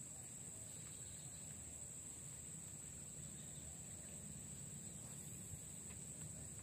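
Steady, high-pitched insect drone that holds one note without a break, over a faint low rumble.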